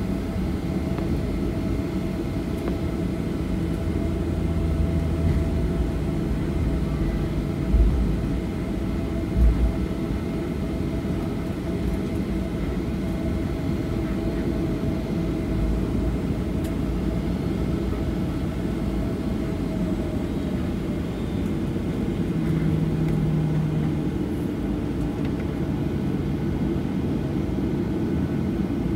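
Boeing 737-800 cabin noise heard from a window seat over the wing: the CFM56-7B jet engines' steady low rumble and hum while the aircraft taxis. Two short low thumps come about a second and a half apart, roughly a quarter of the way in.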